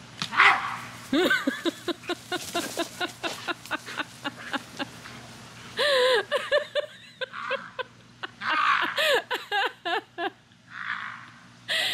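American Bully dog making quick runs of short, pitched bark-like grunts and yips in several bursts with pauses between, sounding angry.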